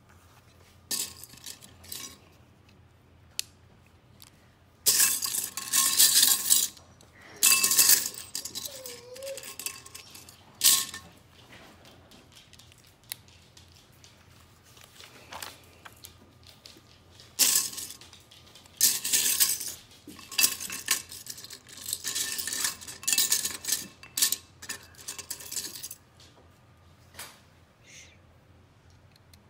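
Loose plastic Lego pieces rattling and clinking against a ceramic bowl as a hand rummages through them, in several bursts of a second or more, with single sharp clicks of bricks between.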